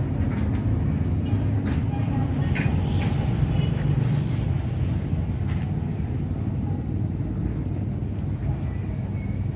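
Steady low rumble of engine traffic in a town street, with a few faint clicks on top.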